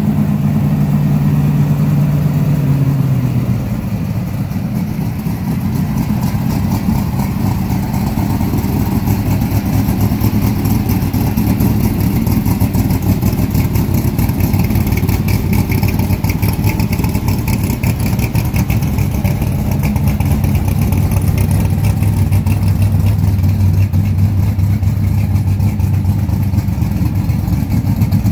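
Old stock car's engine idling after a cold start, its note dropping about three seconds in and then running steadily.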